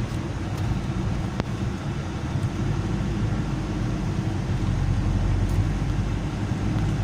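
Motor vehicle running: a steady low engine hum with road noise, and a couple of light clicks in the first second and a half.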